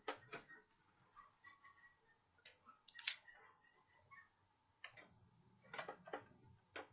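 Near silence: faint room tone with a few short, scattered clicks.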